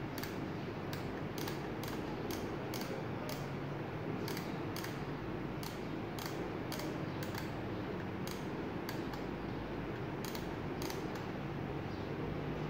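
Automatic soldering gun's trigger-driven solder-wire feed clicking repeatedly, about two to three light clicks a second, as solder is fed onto the end of a lithium-ion cell, over steady background noise.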